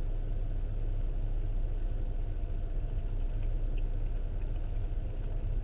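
A car idling: a steady, unchanging low rumble.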